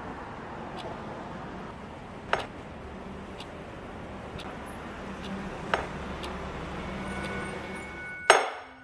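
Steady hum of city traffic with a clock ticking about once a second. Two ticks, a few seconds apart, stand out louder. Near the end comes a sharp knock that rings on briefly.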